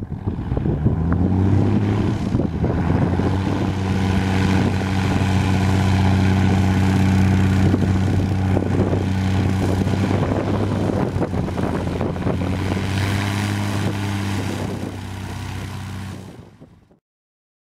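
Cessna 170B's 145 hp Continental O-300 six-cylinder engine and propeller running on the ground close by. The engine note rises over the first couple of seconds, then holds a steady drone. It fades near the end and cuts off.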